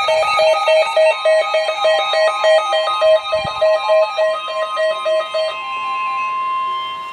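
Electronic alert beeping rapidly, about three to four beeps a second. About five and a half seconds in, a steady single-pitch alarm tone takes over: the warning alarm tone that precedes a weather radio severe thunderstorm warning.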